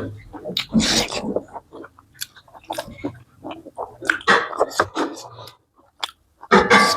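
Close-up eating sounds of a person chewing and biting a meal of chicken curry and corn rice: irregular wet smacks and short clicks, with a louder burst near the end.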